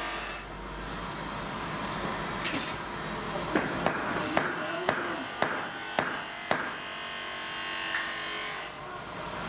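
Hammer striking a carbon steel knife blade: about nine sharp metal blows in the middle, unevenly spaced, over a steady background hum of workshop noise.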